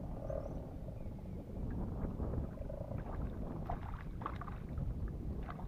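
Low steady rumble of wind buffeting an action-camera microphone on a kayak, with a run of short sharp clicks and ticks in the second half.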